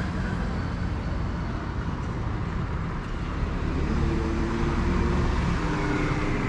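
Road traffic passing on the street alongside: a steady low rumble of car engines and tyres, with a vehicle's engine hum standing out for a couple of seconds about four seconds in.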